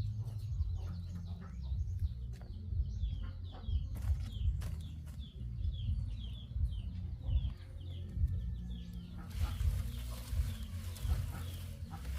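Birds chirping in repeated short, high, falling notes, about two a second, stopping about nine seconds in, over a low rumble of handling and wind. A few sharp clicks come in the middle, and a steady hiss fills the last few seconds.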